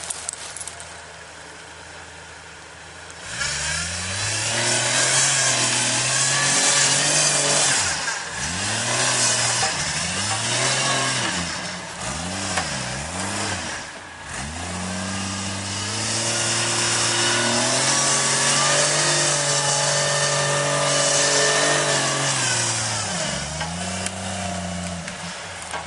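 Off-road 4x4's engine revving hard, starting a few seconds in: the revs rise and fall over and over, then are held high for several seconds before dropping near the end.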